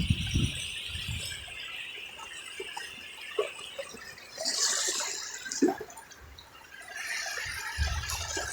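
Shallow seawater sloshing and dripping at the shoreline, with a stronger splash about four and a half seconds in and more splashing near the end.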